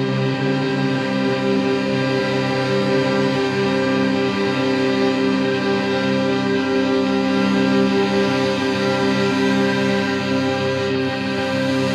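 Background music of long held, string-like notes; no firework bangs stand out above it.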